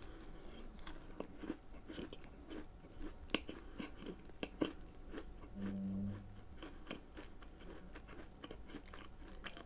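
Close-up chewing of a chocolate chip cookie: soft crunches and wet mouth clicks, with a brief low hum about six seconds in.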